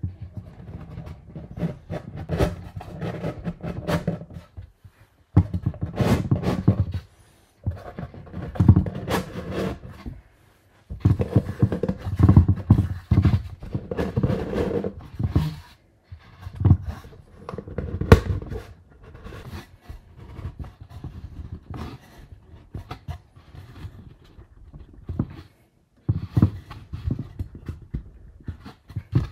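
Hands forcing a plywood centering ring down inside a large cardboard rocket body tube: irregular scraping, rubbing and knocking of wood against the tube wall and fins, a tight fit that takes effort. The sound comes in stretches that cut off suddenly several times.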